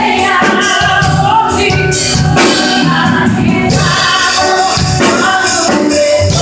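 A woman singing a Portuguese gospel song into a microphone, her voice amplified over instrumental accompaniment with a steady drum beat.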